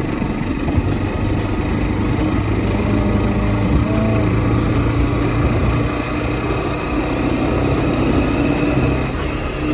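Hero Xtreme 125R motorcycle's single-cylinder engine running at a steady pace while riding, with road noise around it.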